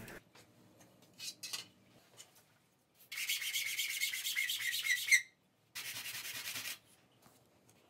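Small 3D-printed PLA parts rubbed back and forth on a sheet of sandpaper: quick scratchy sanding strokes for about two seconds starting about three seconds in, then again for about a second after a short pause.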